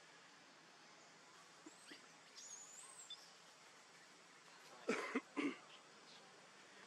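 Macaques calling: a few faint, high squeaks, then about five seconds in three short, harsh, cough-like bursts in quick succession.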